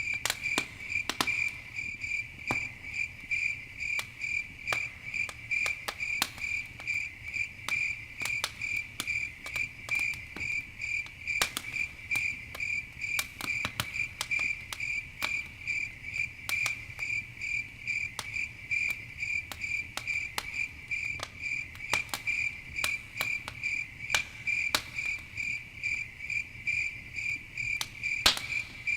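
Crickets chirping in a steady, even rhythm of roughly three chirps a second, over a campfire crackling with scattered sharp pops, one louder pop near the end.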